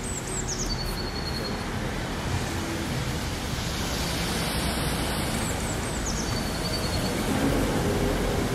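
Steady noise of city road traffic that slowly swells toward the end. Two brief clusters of high, falling chirps come through it, one at the start and one about seven seconds in.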